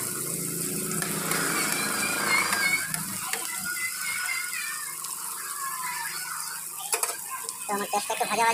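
Chopped onions sizzling in hot oil in a kadai as they fry toward reddish-brown, with a spatula stirring through them. There are a couple of sharp clicks of the spatula against the pan around seven seconds in.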